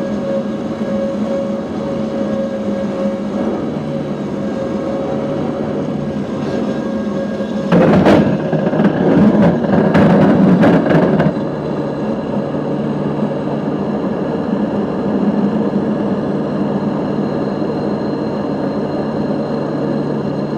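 Cabin noise of a C-2 Greyhound carrier onboard delivery aircraft: a steady twin-turboprop drone. About eight seconds in, a sudden loud jolt and rattling clatter lasts some three and a half seconds as the wheels hit and roll along the carrier deck without catching the arresting wire. The engines then drone on steadily as the aircraft goes around.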